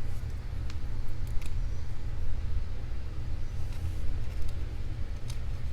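A few faint small metallic clicks of pins and a tool working inside a lock cylinder being gutted, over a steady low hum.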